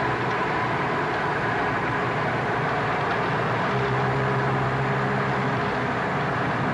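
Steady road and engine noise of a car heard from inside the cabin while driving, with a low hum that comes in for about two seconds in the middle.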